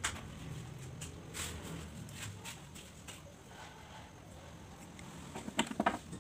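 Faint handling noise of needle-nose pliers bending a steel wire into a small loop: a light click at the start, a soft tap about a second and a half in, and a short cluster of sharper clicks near the end.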